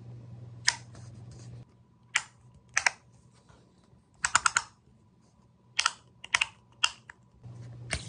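Metal magnetic levitation capsule fidget toy: its metal halves snapping and clicking together in a string of sharp, irregular clicks, with a quick run of four clicks about halfway through.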